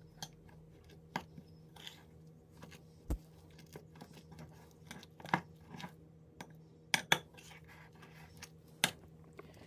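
A utensil clinking and scraping against a bowl at irregular intervals as softened butter is mixed with blended herbs and dry seasoning.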